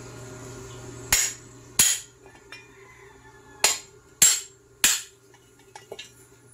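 Five sharp hammer strikes on metal, each with a brief ring: two about a second apart early on, then three evenly spaced ones around the middle, followed by a few faint clinks.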